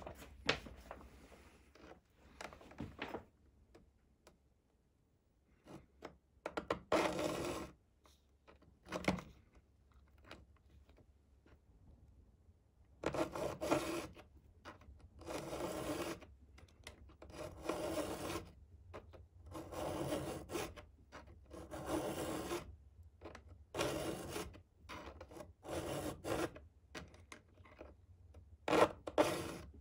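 Hand file rasping across a chainsaw's steel cutter tooth. After a couple of separate strokes, it settles from about halfway through into a regular rhythm of strokes, each about a second long, roughly one every one and a half to two seconds. This is a square (chisel) file reshaping a round-filed cutter into a square-ground edge.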